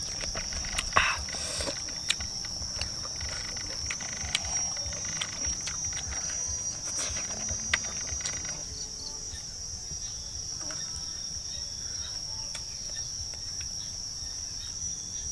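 Steady insect chorus, a continuous high-pitched trill like crickets or cicadas, with scattered small clicks and knocks during the first half.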